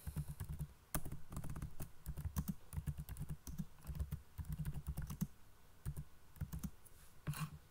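Typing on a computer keyboard: a quick, uneven run of key clicks, thinning out near the end.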